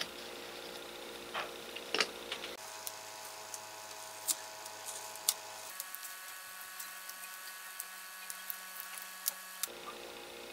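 Scattered light clicks and taps of a small hand tool and wire leads being worked against the stator winding and aluminium housing of an electric blower motor. Underneath runs a steady electrical hum that changes pitch abruptly about three times.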